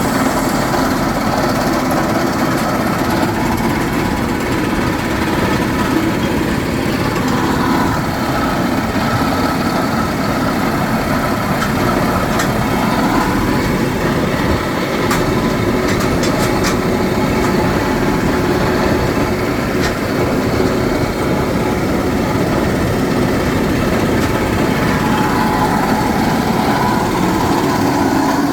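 Hard-rock drilling rig running steadily: a continuous machine noise with slight swells in pitch now and then.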